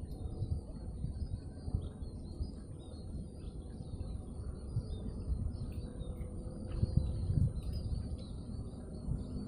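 Outdoor ambience: an uneven low rumble of wind on the microphone, with birds chirping now and then and a steady, high-pitched insect drone.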